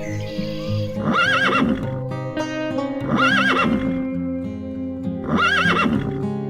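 A horse whinnying three times, about two seconds apart, each a short quavering call, over background music.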